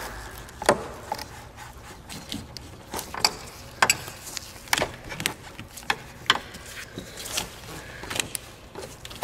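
Irregular metal clicks and knocks of pliers working the clamp on an upper radiator hose, with gloved hands twisting and pulling the rubber hose to free it from the radiator neck.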